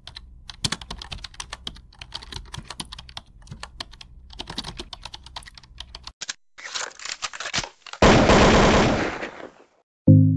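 Logo-intro sound effects: a rapid, irregular run of keyboard-typing clicks, then a few more clicks and a loud noisy burst about eight seconds in that fades over a second and a half, with the first notes of music near the end.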